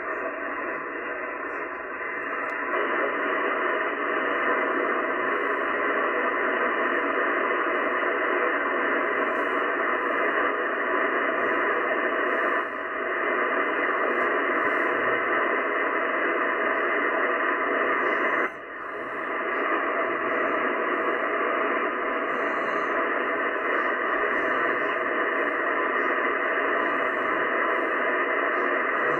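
Shortwave band noise from a Yaesu FTdx10 transceiver receiving in upper sideband: a steady hiss held to the voice band by the sideband filter as the dial is tuned slowly up from about 5.6 to 5.7 MHz. The noise briefly drops out twice partway through.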